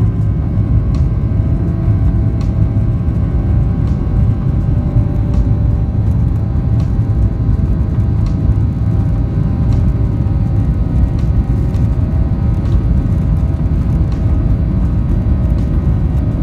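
Airliner cabin noise on the ground before takeoff: a steady, loud low rumble of the engines and airframe with a faint steady whine, and a faint tick about every second and a half.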